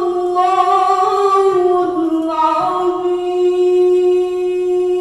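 A young woman reciting Quran verses in the melodic, sung style, unaccompanied: long ornamented notes, the last held steady for about two and a half seconds before it ends.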